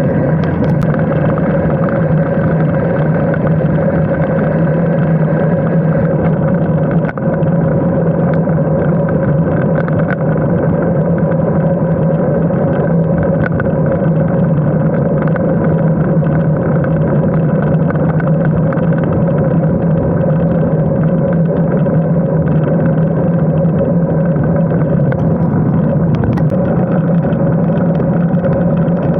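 Steady wind and road noise on the microphone of a handlebar-mounted camera while a road bike is ridden at speed, a constant rushing hum with a brief dip about seven seconds in.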